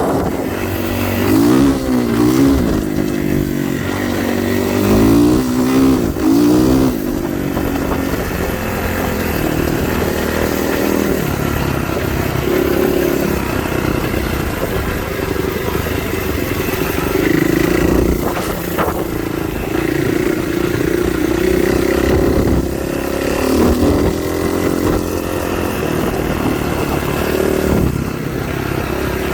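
A vehicle engine running continuously while driving, its pitch rising and falling repeatedly with the throttle for the first several seconds, then holding steadier.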